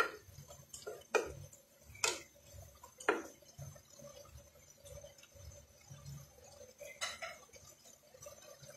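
Wooden spatula stirring chopped papaya and chicken in a nonstick pan, knocking sharply against the pan about once a second through the first three seconds, then once more about seven seconds in.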